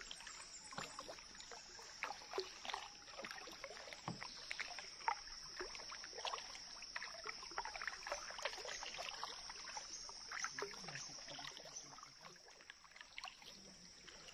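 Kayak paddles dipping into calm river water: small irregular splashes and drips from the blades, over a steady high-pitched drone.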